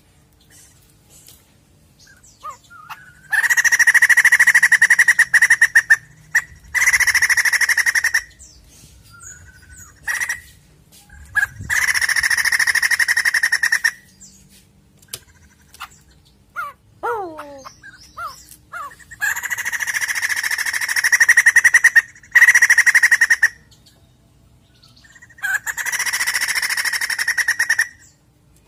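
White-crested laughingthrush calling: six loud bursts of fast, harsh chattering, each one to three seconds long. Between them come a few short whistled notes and a quick run of falling notes.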